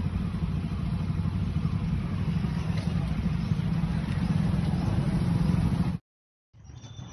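Steady low drone of a motor vehicle engine running close by. It cuts off abruptly about six seconds in.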